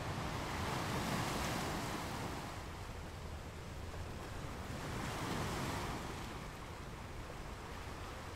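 Sea waves washing ashore, rising in two slow surges about four seconds apart over a low, steady rumble.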